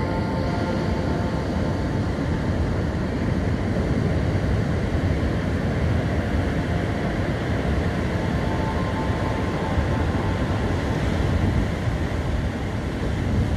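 Ocean surf breaking on the beach, a steady low rumble of waves, with wind buffeting the microphone.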